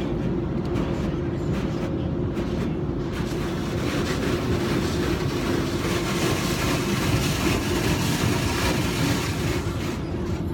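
Automatic car wash heard from inside the car: a steady machinery drone with a held hum, joined about three seconds in by a loud rushing hiss of the wash working over the car that eases off near the end.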